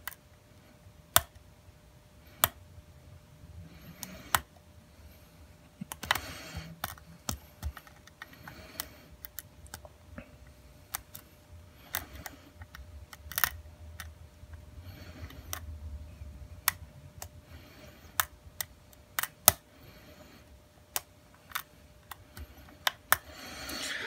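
Lock picking in a brass Schlage padlock: a pick and tension wrench in the keyway give scattered sharp clicks at irregular intervals, with brief stretches of faint scraping. The clicks come as the pick works the lock's serrated pins.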